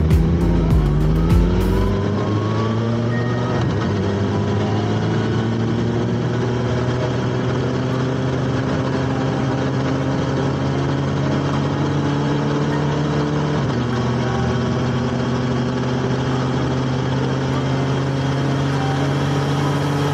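Motorcycle engines on the road: in the first two seconds several bikes' engine notes glide up and down. After that comes the steady running note of a BMW S1000XR's inline-four at cruising speed, heard from the rider's seat with wind and road noise, rising slowly in pitch over the second half.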